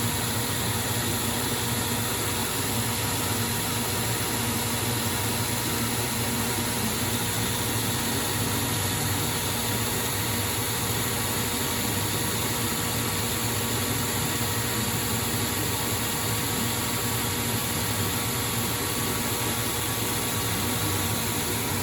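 ProtoTrak CNC lathe taking a roughing pass on a 4140 heat-treated steel shaft at 425 RPM: steady, unchanging machine noise with a low hum.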